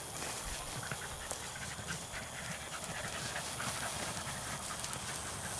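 Beagles panting and sniffing up close while they brush through tall grass on a rabbit's scent, with many small rustles and snuffs and no baying.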